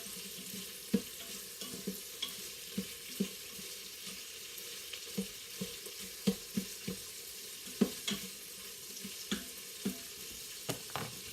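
Chicken pieces sizzling in oil in the pressure cooker pot while being stirred. The spoon knocks and scrapes against the pot a dozen or so times at irregular moments over a steady sizzle.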